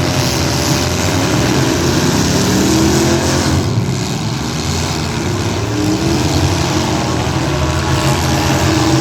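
Several demolition derby street stock cars' engines running hard together, their pitch rising and falling as they rev.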